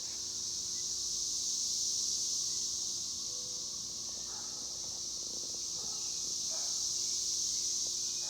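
A chorus of cicadas buzzing: a steady high-pitched drone that swells gently about two seconds in and again near the end.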